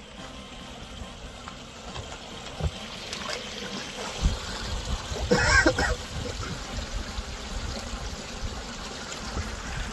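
A person wading in the shallow water of a concrete irrigation ditch in rubber boots: splashing and sloshing around the legs, with a couple of heavy steps a few seconds in. A short yelp comes about halfway through as water pours in over the boot tops.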